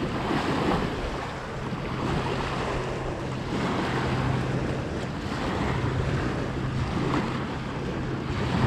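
Wind blowing across the microphone in uneven gusts, with a low steady hum underneath.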